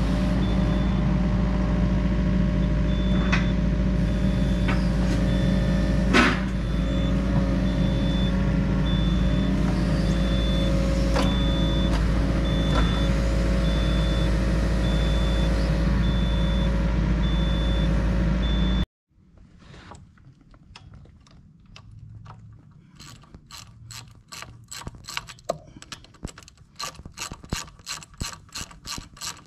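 Yanmar mini excavator's diesel engine running steadily, with a high beep repeating about twice a second and a few sharp metal knocks. About two-thirds of the way in it cuts off suddenly, and a hand ratchet clicks quickly, about three clicks a second, turning a bolt on the excavator thumb's mount.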